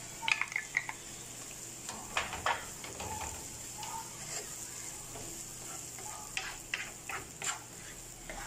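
Chopped garlic sizzling in oil in a frying pan with onion and carrot while a wooden spoon stirs it in, the spoon scraping and tapping against the pan in short strokes now and then.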